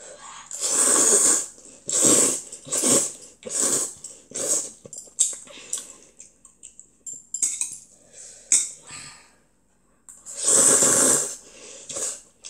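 A child slurping oyster jjamppong noodles with loud, noisy slurps: several short ones in the first few seconds, a quieter stretch, then one long slurp about ten seconds in.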